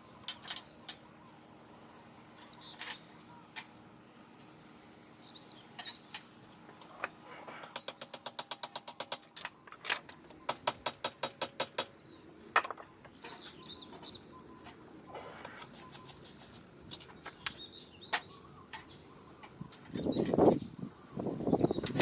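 Small birds chirping now and then. Two bursts of rapid clicking, about ten clicks a second, come in the middle, and a louder clatter starts near the end.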